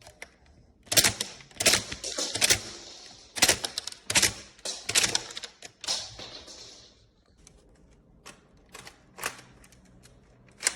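Plastic clacking of a Lego brick rifle's mechanism: sharp clattering bursts of clicks about once a second for the first six seconds, then fainter scattered clicks.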